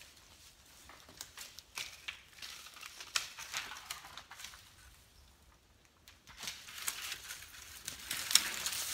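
Footsteps crunching on dry leaves, pine needles and sticks, heard as scattered light crackles and rustles. There is a brief lull past the middle, and the crackles come thicker near the end.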